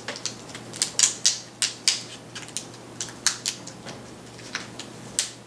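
Sticky tape being peeled off the back of a laptop LCD panel, over the video cable connector: a run of irregular sharp crackles and clicks.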